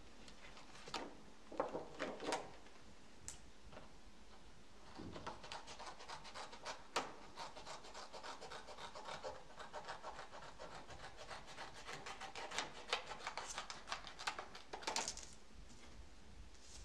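A sheet of paper rustling as it is handled, then scissors cutting it along a curved line from about five seconds in: a dense run of crisp snips and rasps lasting about ten seconds.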